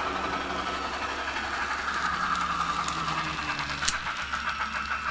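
Soundtraxx sound decoder in a Kato N-scale Union Pacific 844 model, playing recorded 844 steam sounds through the model's small speaker. The locomotive is chuffing rhythmically over a steady low hum as the model coasts on its built-in momentum after being told to stop from speed step 20. There is one sharp click a little before the end.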